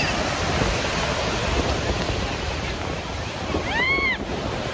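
Ocean surf breaking and washing up a sandy beach with a steady rush of foam. About four seconds in, a brief high-pitched cry rises and falls over the surf.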